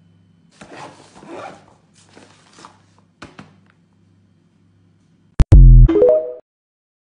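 Faint rustling and a few clicks early on, then the TikTok end-screen sound near the end: a loud, short synthesizer jingle lasting about a second, its notes stepping upward in pitch after two sharp clicks.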